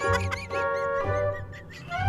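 Background music with held notes, short squeaky chirps and a pulsing low bass note.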